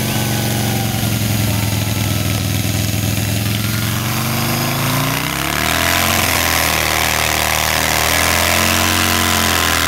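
Large chainsaw running at full throttle, cutting discs off a thick log. The engine note holds steady, then dips about five seconds in, when a louder hiss of cutting joins it.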